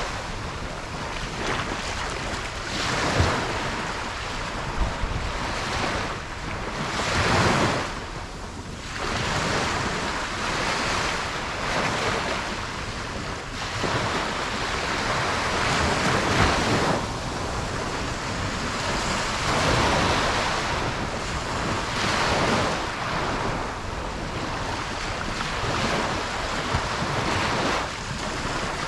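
Ocean surf breaking on a beach, a steady wash of waves that swells and eases every few seconds, with some wind on the microphone.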